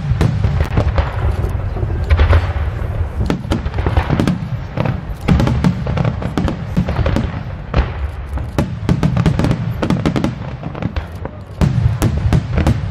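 Aerial fireworks shells bursting in quick succession: deep booms overlapping with sharp cracks and crackle, the cracks coming thickest around the middle and again near the end.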